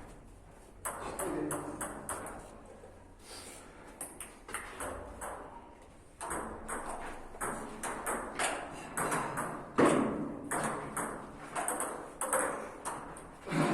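Table tennis ball being hit back and forth in rallies: quick sharp clicks off the bats and table, a few strikes a second. There is a lull of a few seconds in the middle before the next rally.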